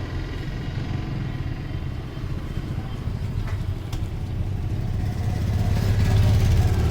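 Low rumble of a motor vehicle's engine, growing louder near the end as it draws closer, with a couple of faint clicks about halfway through.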